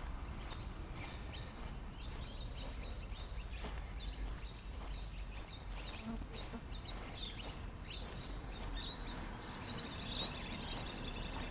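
Small birds chirping and calling again and again over a steady low rumble of outdoor ambience.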